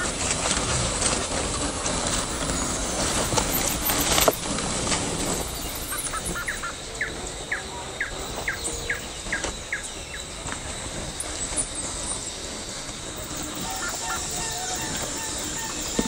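A 1:10-scale RC crawler on a Traxxas TRX-4 chassis driving over dry leaf litter and twigs: leaves rustling and crackling under its tyres, with a sharp crack about four seconds in. In the middle, a quick run of about ten short rising chirps.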